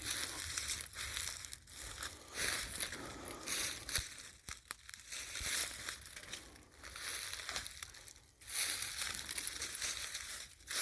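Footsteps crunching through dry leaf litter and pine debris on a forest floor, about one step a second at a steady walking pace.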